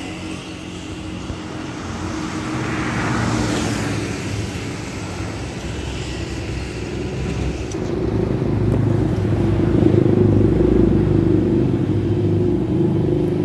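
Motor vehicle engines running, with a vehicle passing about three seconds in; the low engine sound grows louder in the second half.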